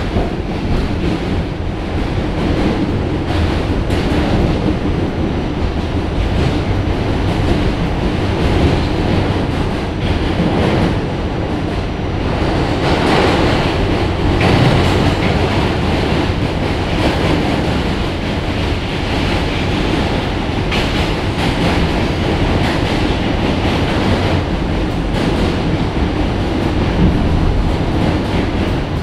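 NYC subway Q train heard from inside the car while running over the Manhattan Bridge: a steady noise of wheels on rails. It grows louder for a couple of seconds about halfway through.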